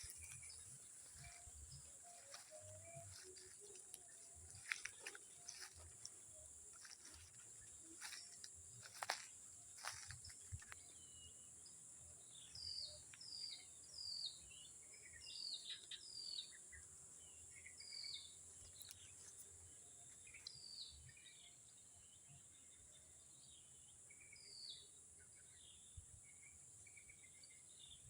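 Faint, steady high-pitched trill of crickets or similar insects, joined from about twelve seconds in by a bird's short falling chirps repeating every second or so. A few sharp clicks sound in the first ten seconds.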